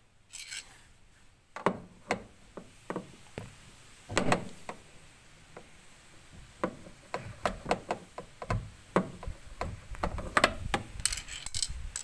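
Irregular knocks, taps and short scrapes of a metal rod against the parts inside a twin-tub washing machine, near its motor pulley and plastic housing, with a few longer scraping sounds near the start, about four seconds in and near the end. No motor is heard running.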